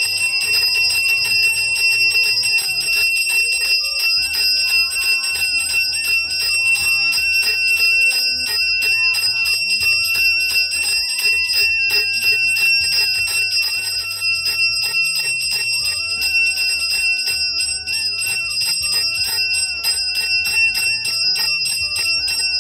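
Background music: a constant, fast ringing of bells over a melody and a steady, repeating bass beat.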